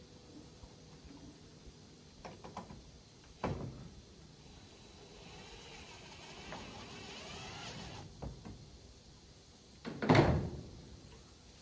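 Mounting hardware being worked into place: a few knocks, then a cordless drill driver whining for about three seconds as it drives a screw to fix a mounting bracket, and one loud thump about ten seconds in.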